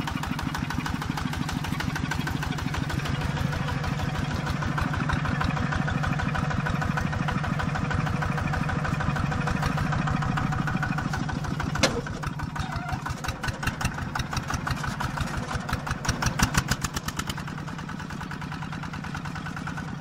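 Small tractor's single-cylinder diesel engine running steadily under load while ploughing, with a fast, even chugging beat. A sharp knock sounds about twelve seconds in, and the beat swells louder a few seconds later before settling slightly quieter.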